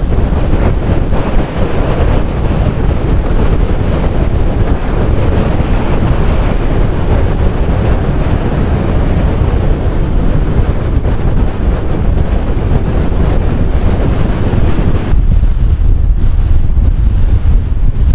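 Strong wind blowing on the microphone: a loud, steady low rumble with hiss. About fifteen seconds in, the hiss drops away suddenly and the low rumble grows heavier.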